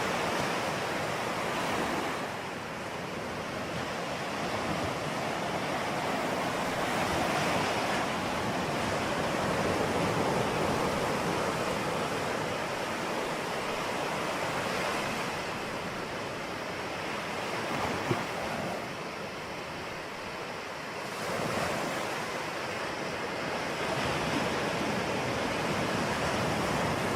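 Ocean surf: a continuous rush of breaking and washing waves that swells and ebbs every few seconds, with one brief click about two-thirds of the way through.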